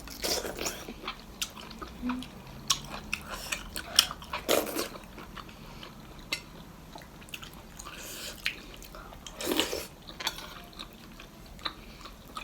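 Close-miked eating sounds: a person chewing, with scattered short clicks and a few brief louder mouth noises.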